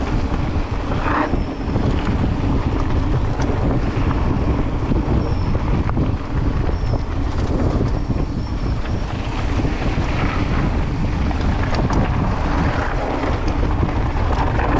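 Wind buffeting the microphone of a mountain bike rolling fast down a dirt trail, a steady low rumble with occasional knocks from the tyres and bike.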